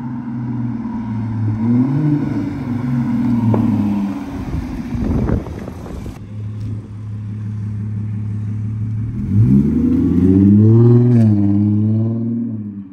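Supercharged Audi A7 engine and exhaust on a drive-by. It runs steadily as the car comes near, with a short rush of noise as it passes close about five seconds in. About nine and a half seconds in it accelerates, the engine pitch rising and staying loud as the car pulls away.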